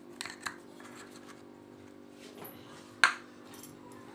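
Handling of a stainless steel plate of fried potato chips as spice is sprinkled over them: a few light clicks near the start, then one sharp click about three seconds in. A steady low hum runs underneath.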